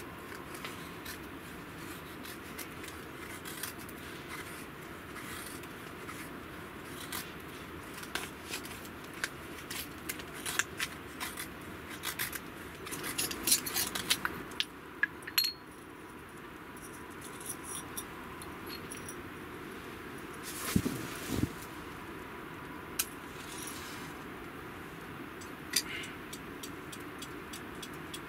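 A knife shaving thin curls off a wooden stick, followed by scattered sharp clicks, scrapes and light knocks as kindling is handled and fed into a small metal wood-burning tent stove to light it. A brief creak about three-quarters through.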